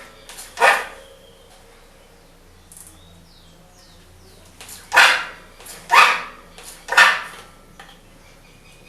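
Fox Float R rear air shock making its strange noise as it rebounds after being compressed: four short loud noises, once near the start and then three about a second apart. The noise seems to come from the shock's internal chamber, gets louder with faster rebound settings, and is a sign of parts inside the shock running without lubrication.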